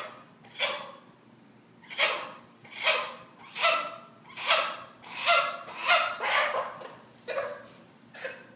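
Hen squawking over and over, about one loud call a second, in distress at being held still while the tape splint is cut off her leg.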